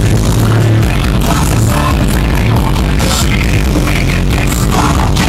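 Very loud, bass-heavy music played through a wall of twelve Rockford Fosgate P3 15-inch car subwoofers driven by about 10,000 watts, with distortion from the microphone overloading under the sound pressure.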